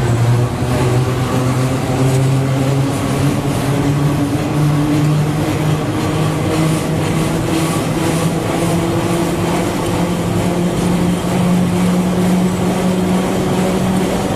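Historic electric tram under way, its traction motors whining in a slowly rising pitch as it picks up speed, over the running rumble of the wheels on the track.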